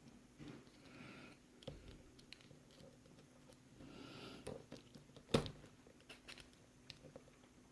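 Faint scattered metallic clicks and taps of a lock pick and tension wrench working the pin stacks of a Burg-Wächter Alpha Titan 900 padlock's 5-pin Iseo cylinder, with one sharper click about five seconds in.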